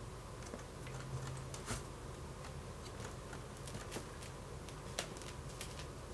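Scattered light clicks and taps, about a dozen at uneven intervals, with the sharpest one about five seconds in, over a low steady hum.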